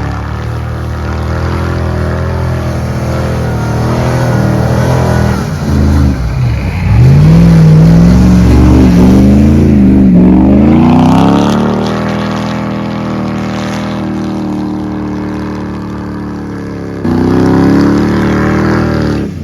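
Off-road truck engine running under load, revving up and down several times in the middle, where it is loudest. It settles back, then jumps up again a couple of seconds before the end.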